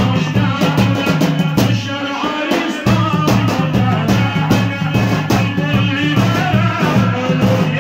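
Yemeni chanted song (zamil) with sung vocals over a fast, steady drum beat; the low drum drops out for about a second around two seconds in, then comes back.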